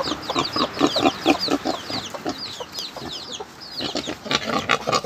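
Chickens clucking: a rapid run of short calls, with many high, quick chirps over them.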